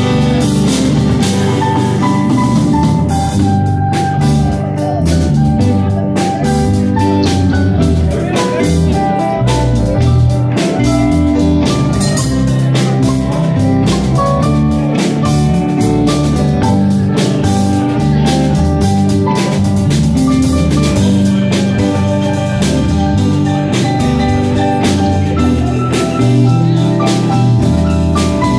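Live blues band playing an instrumental passage with no singing: electric guitars, bass and keyboard over a steady drum-kit beat, loud and continuous.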